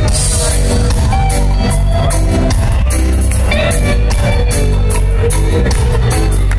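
Reggae band playing live, heard from within the audience: electric guitars, bass and drums with a steady beat.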